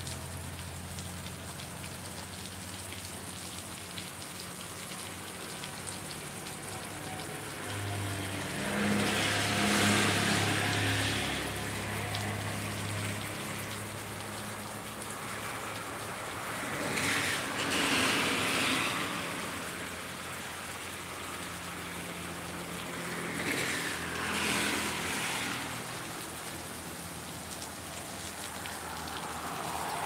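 Steady rain falling, with vehicles passing on the wet road three times: tyre hiss swells and fades about a third of the way in, near the middle, and again later.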